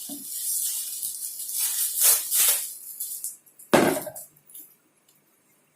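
Gift-wrapping paper and foil wrapper crinkling and rustling as a present is torn open, with a single knock about four seconds in.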